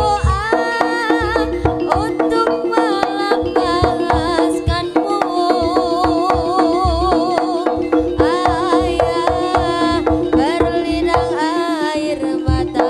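Live Javanese jaranan ensemble playing: rapid, busy drum strokes under a steady held tone and a wavering, sliding melody line.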